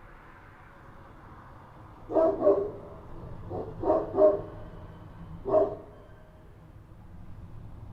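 Street dogs barking at night: about six sharp barks in three short clusters, from about two seconds in to nearly six seconds in, over a faint steady low background hum.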